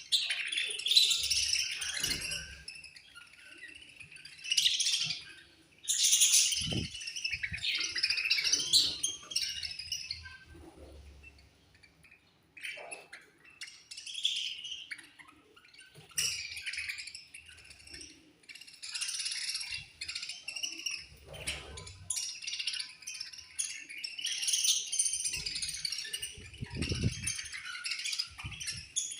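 A colony of budgerigars chirping and chattering, many birds at once, in irregular bursts with short lulls between them. A few low thumps sound beneath the chatter, one near the end.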